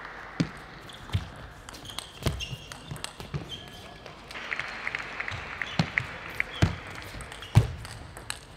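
Table tennis ball clicking off the bats and bouncing on the table in a rally, a string of sharp, separate knocks, the loudest one near the end.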